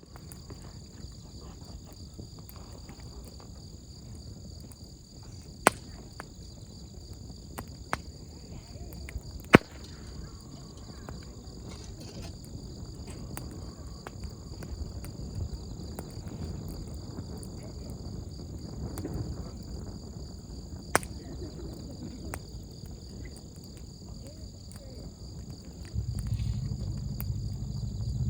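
Wood campfire burning with a few sharp pops, over a steady high chirring of insects. A low rumble grows louder near the end.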